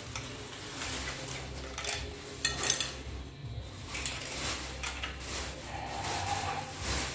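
Hard plastic toy dinosaurs clacking against each other and knocking on a stone tabletop in a pretend fight: scattered sharp knocks, the loudest few about two and a half seconds in.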